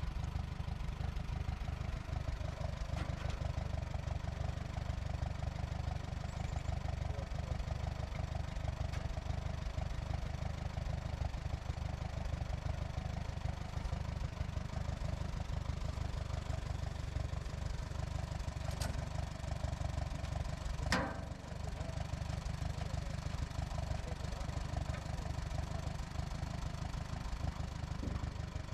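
Portable sawmill's gas engine running steadily, with a single sharp knock about two-thirds of the way through.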